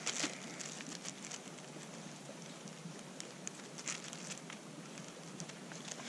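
Campfire crackling faintly: scattered small pops and ticks over a low steady hiss, the loudest pop right at the start.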